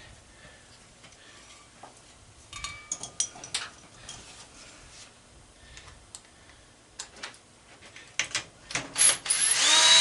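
Metal hand tools clicking and rattling in short scattered bursts while working on a nut. Near the end a power drill runs loudly in short spells.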